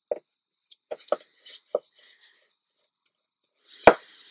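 Flat brush spreading glue over the side of a box: soft scratchy brushing with a few light taps. There is a sharper knock just before the end.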